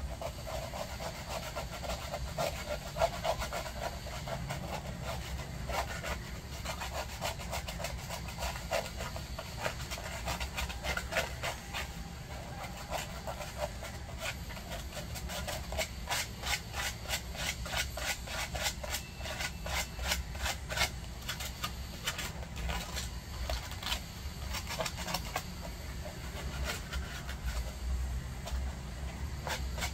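A dog's claws being filed with a nail file: quick filing strokes repeated over and over, with a steady low hum underneath.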